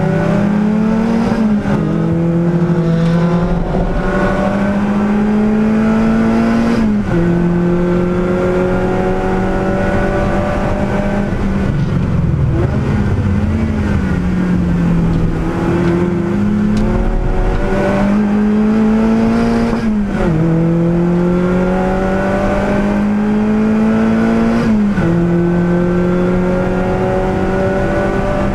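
Lotus Elise Cup R S3 racing car's engine heard from inside the cockpit under hard acceleration, pitch climbing and dropping sharply at four upshifts. Midway the revs fall and rise again as the car slows for a corner and pulls away.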